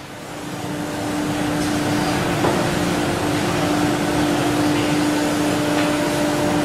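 Steady mechanical hum of workshop background noise, like a running ventilation fan, with one constant droning tone; it fades in over the first second or two, with a light tap about two and a half seconds in.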